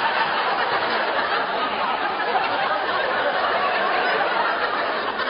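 Sitcom studio audience laughing long and steadily.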